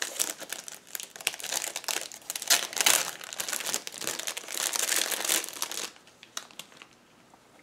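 Wrapping crinkling and rustling in the hands as a small gift box is unwrapped, dense for about six seconds, then a few light clicks near the end.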